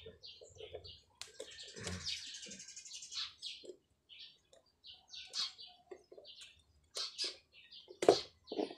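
Small birds chirping in short, scattered calls, mixed with clicks and a brief scraping rasp from hands working wires into relay socket terminals. A sharp click about eight seconds in is the loudest sound.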